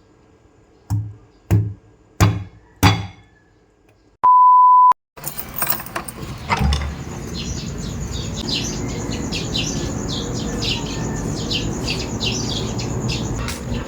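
Four short sharp hits about two-thirds of a second apart, then a steady electronic beep lasting under a second. After it comes a continuous hiss with rapid, repeated high chirps over it.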